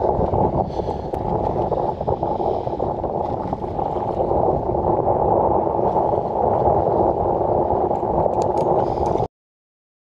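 Steady rushing wind-and-water noise on the open fishing boat, cutting off suddenly about nine seconds in.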